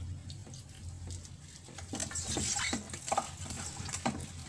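Raw chicken pieces in marinade being mixed by gloved hands in a stainless steel bowl: an irregular run of short wet squelches and slaps, with a low steady hum underneath.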